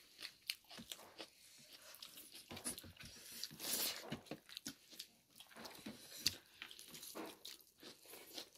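People eating a rice meal with their hands: faint, irregular crunching and chewing with small clicks of food and dishes.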